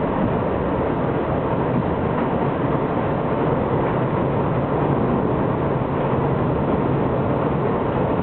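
Steady running noise inside a moving R62A subway train on the 7 line: the rumble of wheels on the rails and the train's motors, at a constant level.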